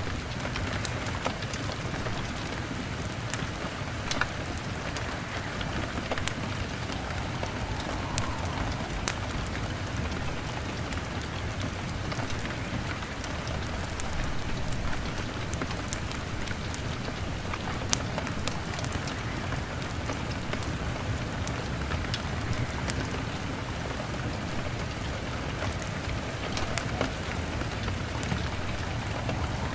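Steady rain on a window, mixed with a crackling log fire: scattered sharp pops over an even hiss.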